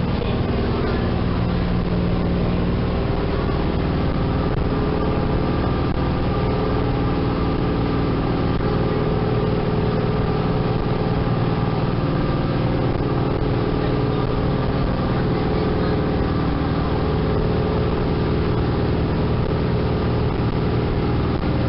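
Sightseeing boat's engine running steadily under way, a constant drone with the rush of water from the wake.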